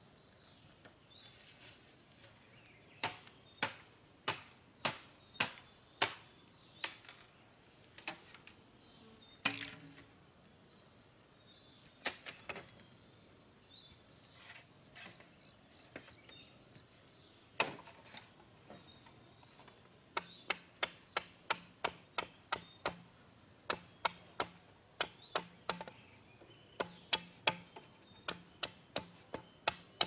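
Bamboo being chopped with a hand tool: sharp strikes, scattered at first, then a quick run of about two a second through the second half. Insects shrill steadily behind.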